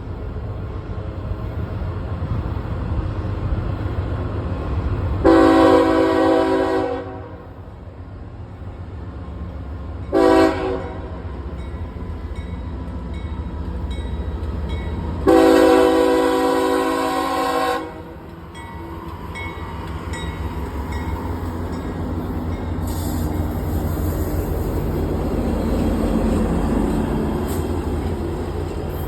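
Freight train diesel locomotives rumbling steadily while the lead locomotive's air horn sounds three blasts: a long one about five seconds in, a short one about ten seconds in and a long one about fifteen seconds in. After the horn the rumble of the passing train gradually builds.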